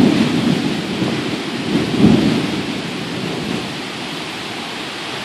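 Tropical storm rain hissing steadily, with two heavy low rumbles, one at the start and one about two seconds in, that die away before the end.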